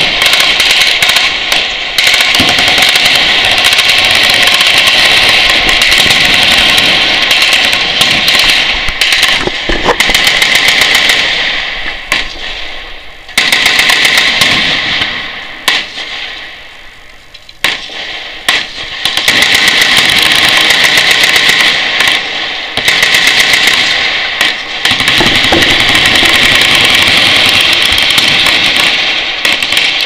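Many machine guns on the firing line shooting at once in long sustained bursts, a dense rapid stream of shots. The firing eases off twice near the middle and then picks up again.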